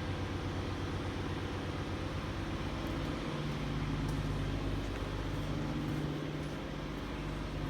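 An engine idling steadily with an even, rapid pulse; its tone shifts slightly a little over three seconds in.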